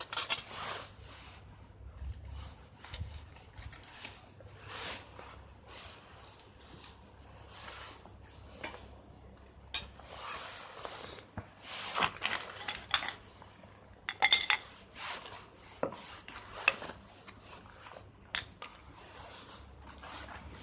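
Irregular clinks, taps and scrapes of metal cookware and utensils being handled, with a few sharper knocks scattered through.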